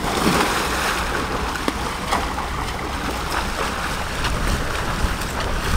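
Water splashing as a person jumps into a lake and swimmers thrash through the water at racing speed, with wind rumbling on the microphone.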